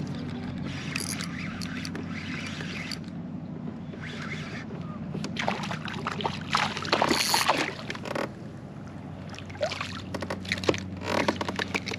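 Electric trolling motor of an Old Town AutoPilot kayak humming steadily. Bursts of splashing and clatter come through about halfway in and again near the end.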